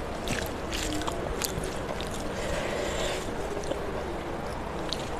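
A hand mixing and squeezing rice with fish curry on a steel plate: soft wet squishing with a few light clicks, over a steady background hiss.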